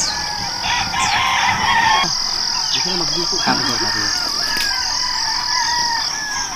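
Forest ambience: a steady, high-pitched drone of insects, with many short croaking frog calls over it.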